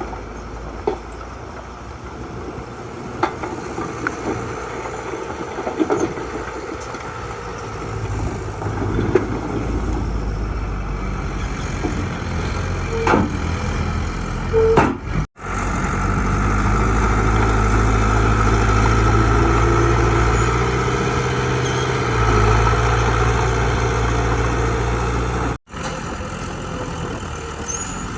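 Diesel engine of heavy earthmoving machinery running and working harder from about a third of the way in, with scattered sharp metallic knocks in the first half. The sound cuts out briefly twice.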